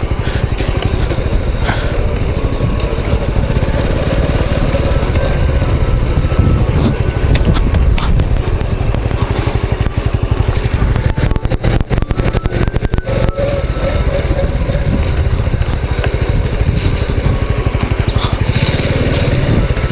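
Small motorcycle, a Honda Cross Cub 110, running at low speed over a rough path, heard through heavy rushing noise on the onboard microphone. A quick burst of sharp clicks and knocks comes a little past halfway.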